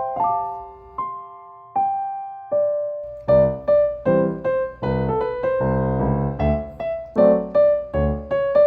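Background music played on piano or electric piano: a few slow single notes, then from about three seconds in a bouncy melody over steady bass chords.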